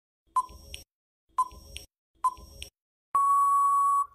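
Countdown timer sound effect: three short beeping ticks about a second apart, each followed by a softer click, then a long steady beep of about a second as the timer runs out.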